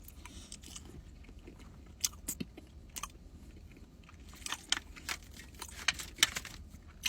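Close-miked eating sounds: a person chewing a mouthful of fufu dipped in egusi soup, with scattered soft wet mouth clicks.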